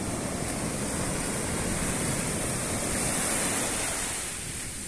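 Ocean surf washing up a sandy beach: a steady rush of breaking, foaming water that swells about three seconds in and eases toward the end.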